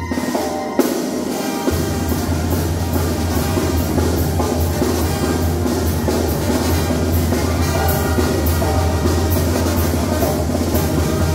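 Mexican brass band playing: a tuba holds a strong bass line under horns, while a bass drum with a mounted cymbal keeps a steady beat. The tuba drops out for a moment and comes back in under two seconds in.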